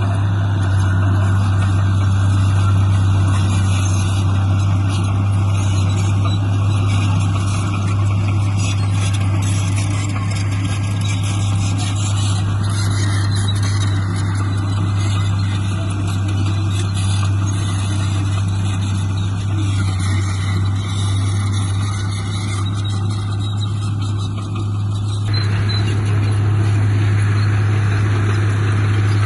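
Heavy diesel earthmoving machine engine running steadily under work, with a strong constant low hum and a shifting clatter above it.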